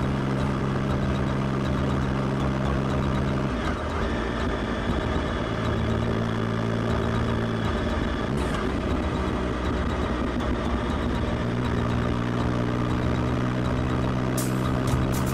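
Motorcycle ridden at a steady cruise, heard from on board: a continuous engine drone under wind and road noise.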